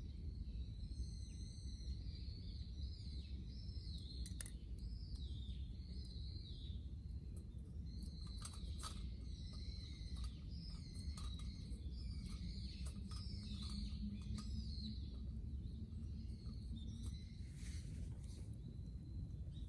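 Outdoor ambience: continuous high, wavering chirping from small animals, with scattered short clicks over a steady low rumble.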